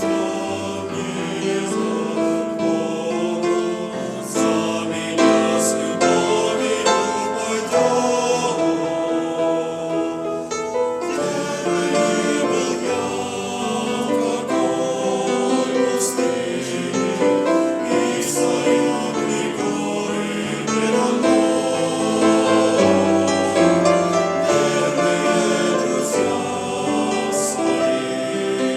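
A choir singing a song with piano accompaniment.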